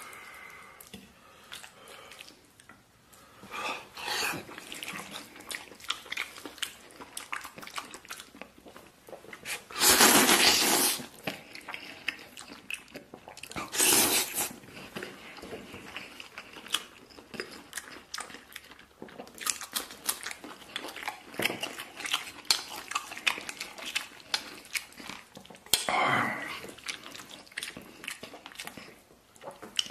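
A person eating tomato-beef instant noodles: wet chewing and small mouth clicks throughout, with three louder slurps of noodles, about ten seconds in, around fourteen seconds, and near the end.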